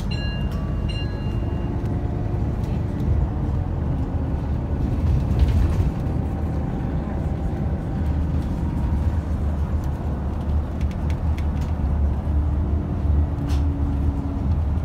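Inside a Scania K280UB Citywide LE bus under way: the low, steady drone of its five-cylinder diesel engine with road noise. Two short electronic beeps sound about a second apart at the start.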